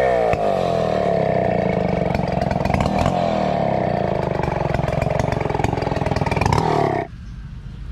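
Gasoline chainsaw running at high revs as it cuts into a felled santol log, its pitch wavering with the load. The engine sound drops away abruptly about seven seconds in.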